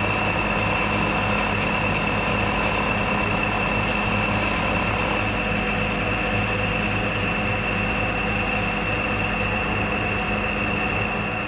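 Milling machine running steadily, its cutter facing off the flat pads on a model traction engine's boiler, with a steady high whine over a low motor hum.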